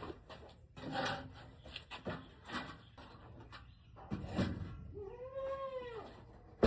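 A farm animal gives one drawn-out call, rising then falling in pitch for about a second, about five seconds in, amid a few short knocks and rustles.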